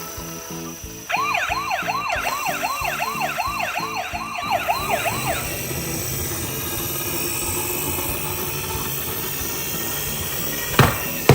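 Emergency siren sounding in fast rising-and-falling sweeps, about three a second, for about four seconds, over background music with a steady beat. A sharp click near the end is the loudest moment.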